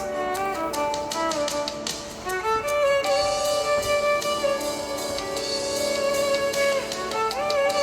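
Background instrumental music: a melody on a bowed string instrument such as a violin, with sliding notes over light percussion.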